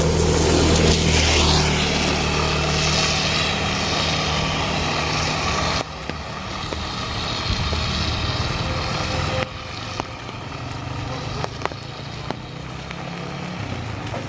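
A motor vehicle's engine running close by, with a rising whine about a second in, over a steady hiss of rain. The sound drops off suddenly twice, about six and about nine and a half seconds in.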